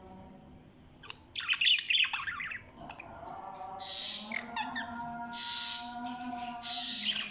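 Budgerigars squawking and chattering, with a loud harsh burst of calls about a second and a half in, then shorter scratchy calls.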